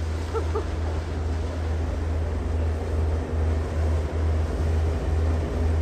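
A charter boat's engine running with a deep, steady drone that begins to throb at about two beats a second about halfway through, over a rush of water and wind.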